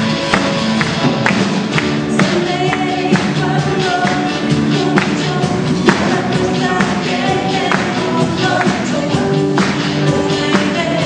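Voices singing a pop song into handheld microphones over amplified accompaniment with a steady beat.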